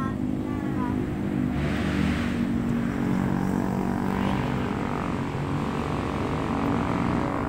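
A steady, low engine drone with a pitched hum.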